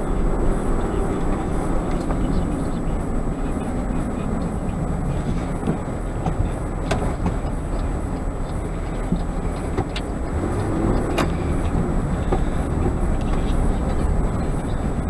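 Steady road noise inside a moving car's cabin, a low rumble of tyres and engine, with a few light clicks in the second half.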